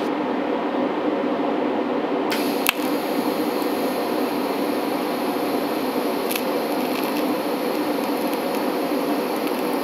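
Steady hum, then a little over two seconds in a DC TIG arc strikes and runs as a steady high hiss, with one sharp crack just after it starts. This is TIG brazing with silicon bronze filler, tacking a patch onto a brass radiator tank.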